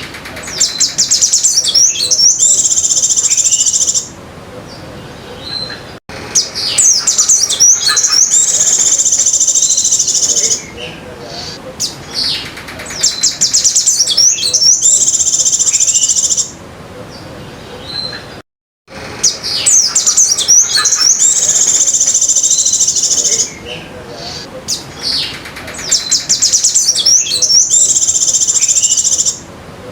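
Caged sogon songbird singing bouts of rapid high chirps running into a steady high trill, an imitated white-eye (pleci) song in its continuous 'ngecir' style. About five bouts of roughly four seconds each, with quieter pauses between.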